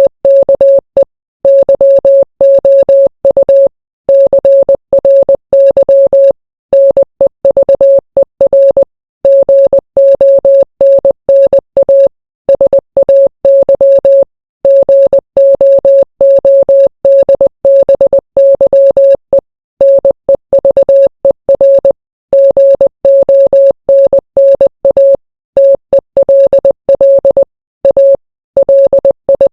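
Morse code sent as a single steady beep tone, keyed on and off quickly in short dots and longer dashes with brief gaps between characters.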